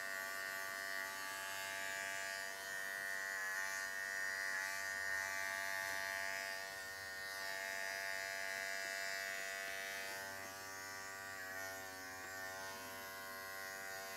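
Wahl Bravura cordless clipper fitted with a 6 mm comb, running with a steady buzz while trimming a Maltese's leg coat. It gets slightly quieter about ten seconds in.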